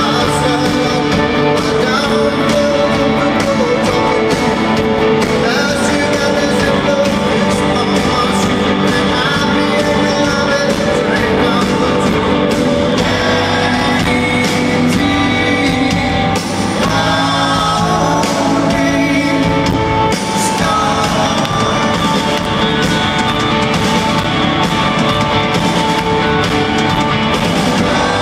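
Live rock band playing loudly through an arena sound system: amplified electric guitars, bass and drums with a singer, heard from within the audience.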